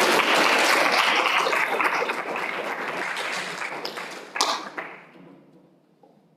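Audience applauding, the clapping dying away over the last couple of seconds, with one sharper knock about four seconds in.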